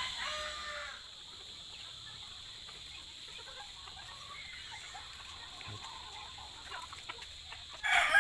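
Rooster crowing: one crow trails off about a second in, and another starts just before the end. In between, a quiet stretch with a steady high-pitched hum in the background.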